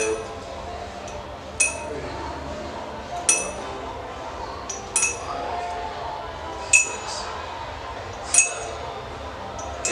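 Small firecrackers dropped one by one into an empty glass Coca-Cola bottle. Each lands with a sharp, ringing glass clink, about every second and a half, six or seven times.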